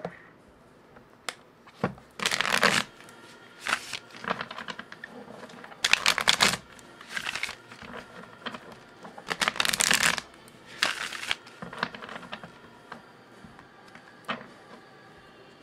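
A Star Spinner Tarot deck being shuffled by hand: repeated short bursts of cards rasping and flicking against each other. The loudest bursts come about two, six and ten seconds in, with softer card taps and slides between.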